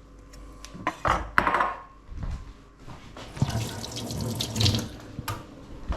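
Water from a kitchen tap splashing into a sink, with a few sharp knocks about a second in.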